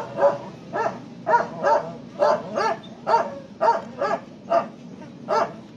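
A dog barking over and over, about two short barks a second.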